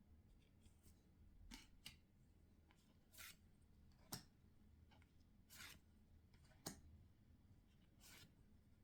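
Faint swishes and light clicks, about one every second, of Pokémon trading cards being slid and flipped by hand.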